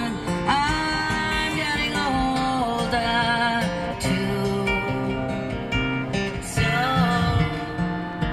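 Music: strummed acoustic guitar with a singing voice.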